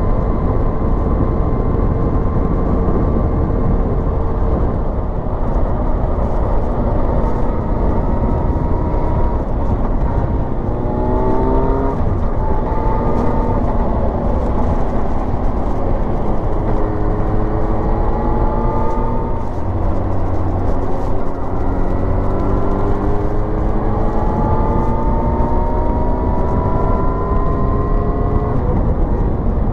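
Inline-four motorcycle engine under way, heard on board over steady wind rumble. The engine note climbs several times as the bike accelerates: sharply about a third of the way in, and in longer rises later on.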